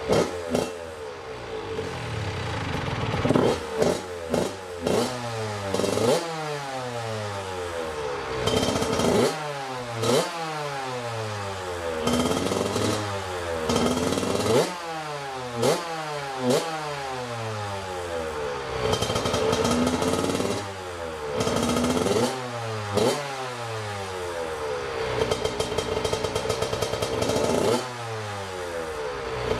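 Honda CR85RB single-cylinder two-stroke dirt bike engine, breathing through its stock OEM exhaust, running at idle and repeatedly blipped. Each blip revs sharply and falls back to a steady idle, as the idle is being set.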